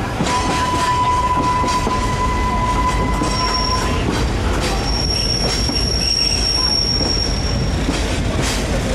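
Passenger train rolling slowly, its wheels squealing against the rails over a steady rumble. A lower squeal holds for the first four seconds or so, then a higher, thinner squeal sounds for about three seconds.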